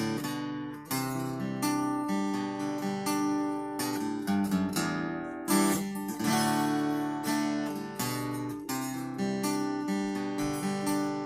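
Acoustic guitar strummed in a steady rhythm, chords ringing between strokes, as an instrumental passage with no singing.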